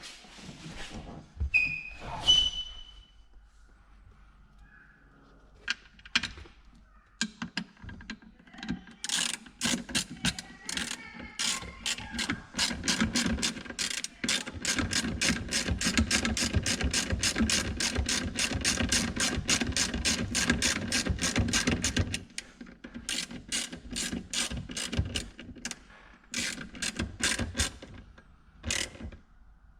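Ratchet wrench clicking rapidly and evenly in a long run of about thirteen seconds, then in shorter bursts, after a few ringing metal tool clinks near the start.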